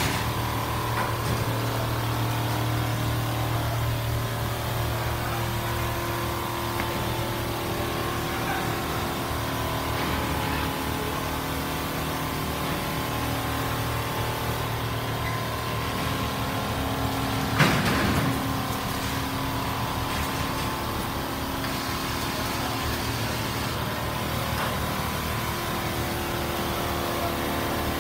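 Computerized single-needle quilting machines running on a factory floor: a steady mechanical hum with several steady tones. A single sharp knock stands out about two-thirds of the way through.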